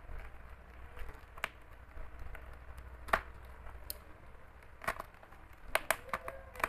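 A utility knife slicing through plastic-wrapped bubble wrap on a parcel, with scattered crackles and sharp snaps of plastic, several coming close together near the end.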